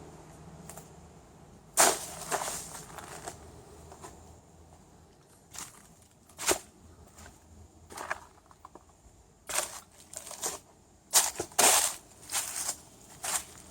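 Footsteps walking outdoors: irregular sharp steps, one every half second to a second, with a cluster of louder steps near the end.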